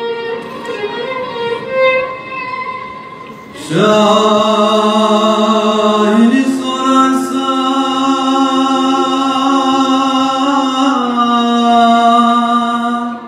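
A male voice singing a Turkish ağıt (lament) in long held, wavering notes. It begins with a quieter ornamented line, then from about four seconds in holds a loud note that steps up slightly and drops back near the end.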